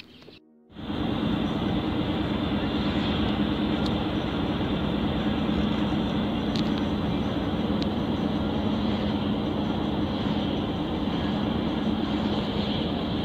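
Steady road and engine noise inside a moving car driving at speed, starting about a second in after a brief silence.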